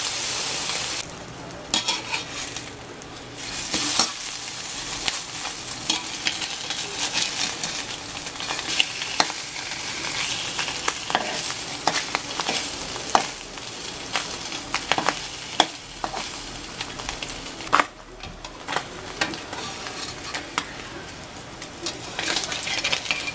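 Slices of Spam sizzling as they fry in a metal pan, with frequent sharp taps and scrapes of a metal slotted spatula turning and pushing them.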